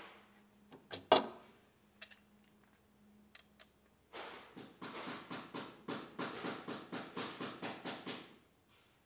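A one-handed bar clamp's trigger being pumped over and over, ratcheting the jaw along the bar in a steady series of short clicking strokes, about three a second for some four seconds. Before that, one sharp knock of the wooden strip being handled about a second in.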